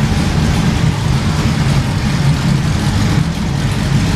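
NASCAR stock car V8 engine running with a steady, deep, lumpy note.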